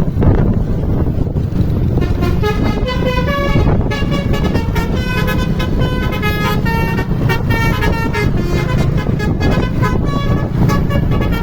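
A bus's basuri melodic horn playing a tune note by note over the low rumble of the engine and road. The tune starts about two seconds in.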